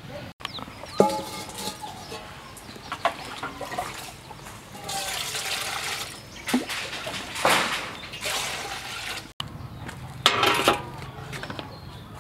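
Water scooped with a plastic dipper from an earthenware jar and poured, in several splashing pours about a second or less each, with a few knocks in between.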